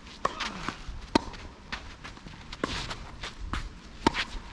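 Tennis ball struck by rackets in a rally: sharp cracks about a second and a half apart, the loudest about a second in, with ball bounces and players' footsteps on the court between them.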